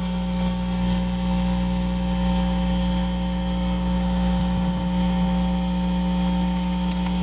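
Steady electrical hum: a low buzz with several higher held tones over it, unchanging throughout.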